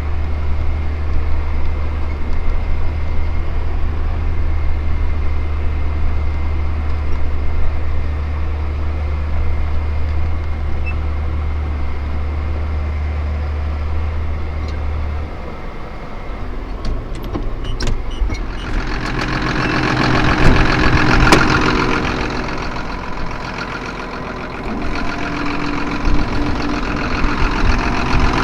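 Tractor engine running with a steady low drone for about fifteen seconds. The note then changes and the engine grows louder and fuller, peaking a few seconds later before easing off.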